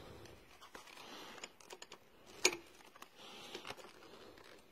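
Quiet handling sounds around a motorcycle's steering head: light scattered clicks and rustling, with one sharper click about two and a half seconds in.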